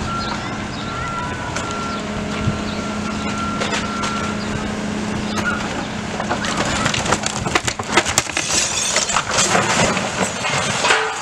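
Excavator's diesel engine running steadily while its bucket pushes over a brick wall. From about six seconds in, bricks and timber crash and clatter down for several seconds.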